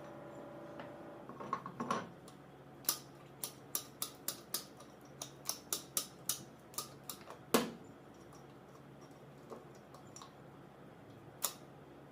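Sharp clicks and taps of metal parts and tools being handled while a car starter motor is worked on, about a dozen in quick succession over five seconds, the loudest near the middle and one more near the end. A faint steady hum lies under the first second.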